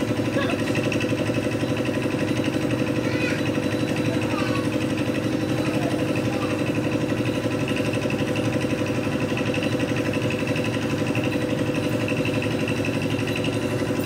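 Portable concrete mixer's engine running steadily at an even speed, with a fast regular pulse.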